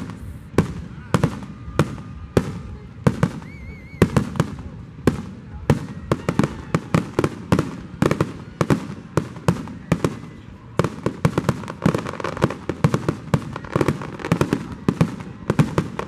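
Aerial fireworks shells bursting one after another in a rapid string of sharp bangs, which comes much thicker and faster about eleven seconds in.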